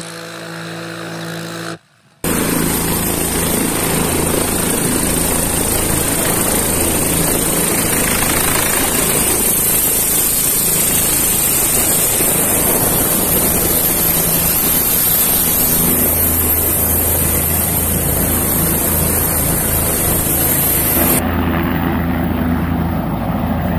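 Helicopter turbine engine and main rotor running loud and steady at close range, with a low rotor rumble under a high turbine whine. Near the end the high whine drops away as the helicopter lifts off.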